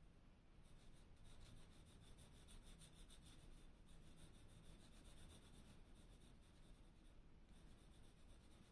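Faint pencil scratching on paper: a quick run of short strokes, with a brief pause near the end.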